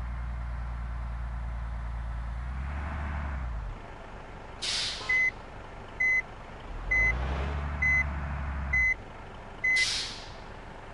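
A heavy vehicle's engine running, then a sharp air-brake hiss, a reversing alarm beeping six times at about one beep a second, and a second air-brake hiss as the beeping stops.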